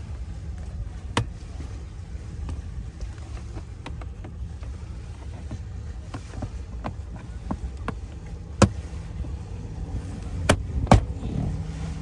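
Plastic lower dashboard trim panel of a Mitsubishi Pajero being worked into place by hand: scattered clicks and sharp knocks of the panel and its clips, the loudest two-thirds of the way through and two more close together near the end, over a steady low rumble.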